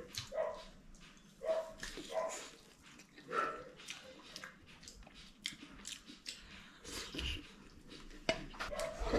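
A dog giving several short yelps, with faint clicks and chewing of eating between them.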